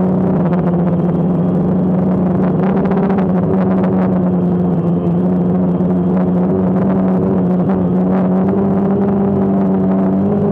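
DJI Phantom quadcopter's motors and propellers humming steadily in flight, heard close up from the camera mounted on the aircraft, with a strong low note and several higher ones above it.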